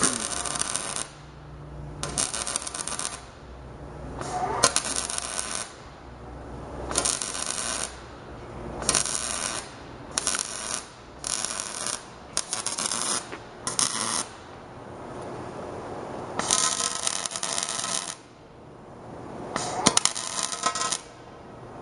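MIG welder arc crackling and sizzling in about a dozen short bursts, each roughly a second long with brief pauses between, as the bead is laid in stitches to fill wide gaps in the tubing joints.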